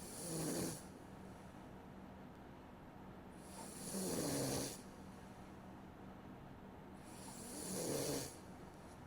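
A sleeping person snoring: three snores about three and a half seconds apart, each sliding down in pitch, picked up by a streaming microphone.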